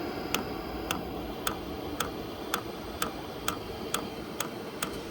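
HCalory TC2S diesel heater's fuel dosing pump ticking about twice a second, its even clicks quickening slightly, over a steady hiss. The pump is priming a dry fuel line on first start, with fuel only just being drawn through.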